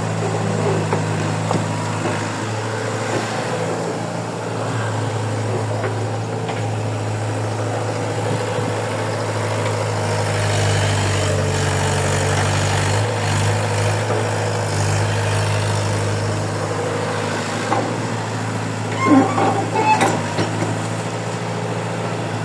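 Heavy diesel machinery engine running steadily at a low idle-like pitch, with a few sharp knocks near the end.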